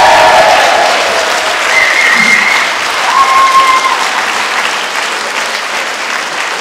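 Audience applauding and cheering, loudest at first and slowly easing off, with a couple of short high calls from the crowd a few seconds in.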